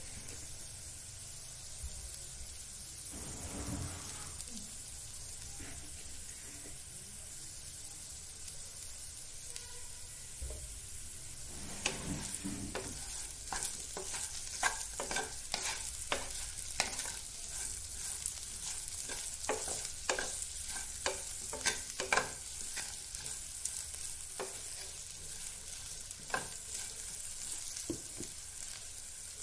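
Diced potatoes and green chillies sizzling steadily in oil in a nonstick frying pan. From about twelve seconds in, a wooden spatula stirs them, with frequent light knocks and scrapes against the pan.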